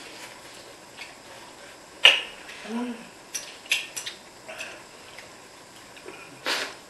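People eating noodles: chopsticks click against ceramic bowls a few times, with a short hum of a voice about three seconds in and a noisy slurp near the end.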